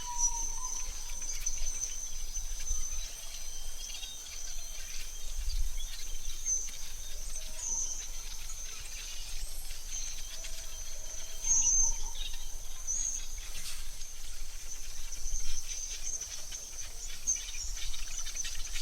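Forest ambience: a steady high-pitched insect drone, with short bird chirps and a few soft whistled bird calls scattered through.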